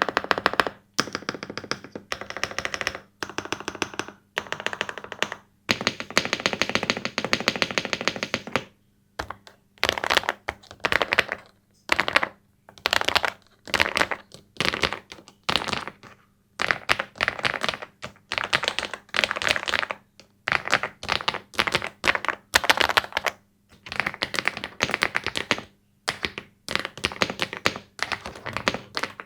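Typing on a MechLands Vibe99 aluminium mechanical keyboard with factory-lubed switches. Bursts of rapid keystroke clacks come one after another, broken by short pauses.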